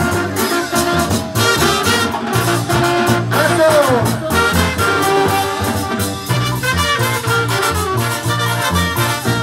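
Brass band music with trumpets and trombones playing over a steady beat.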